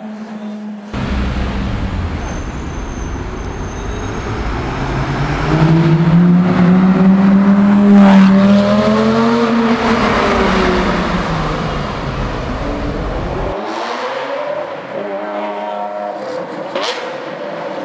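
Lamborghini supercar engines: one accelerates hard past, its note climbing to a loud peak about halfway through and then falling away as it leaves. Later a Lamborghini Aventador's V12 runs at lower revs, with one sharp crack near the end.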